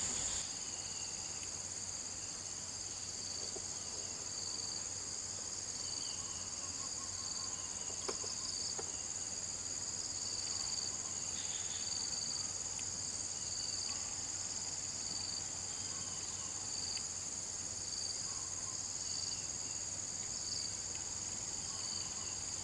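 Insects calling: a steady high-pitched drone with a second, lower call that pulses about once a second.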